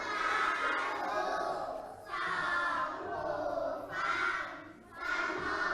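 A class of young children chanting together in unison, in four short sing-song phrases with brief pauses between them.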